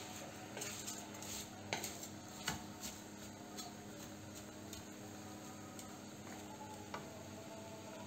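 Wooden spatula stirring peach slices and sugar in a nonstick saucepan, giving a run of light taps and scrapes against the pan in the first few seconds, then only an occasional tick over a faint steady hiss.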